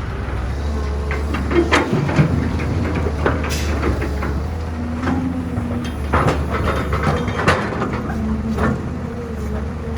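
Heavy diesel machinery, an excavator loading a dump truck, running with a steady low rumble, broken by irregular clanks and knocks of the bucket and of dirt and stones dropping into the truck bed.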